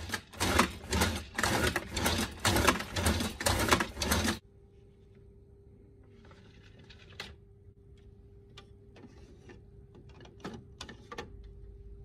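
Slide plate of a Chiba High Slice manual vegetable slicer driven rapidly back and forth in even strokes, shredding sweet potato through its 3x3 comb blade; the strokes stop abruptly about four seconds in. After that a low steady hum remains, with a few sharp clicks as the slicer's slide plate and partition plate are moved.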